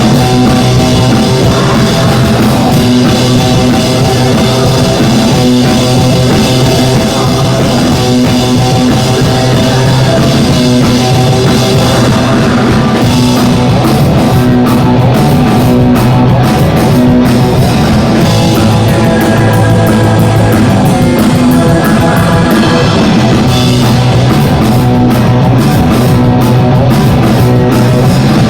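Live band playing loud rock music, with a drum kit keeping a steady beat under sustained pitched instruments.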